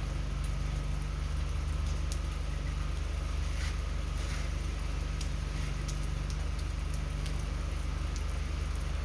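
An engine running steadily with a low, even hum, with scattered light ticks over it.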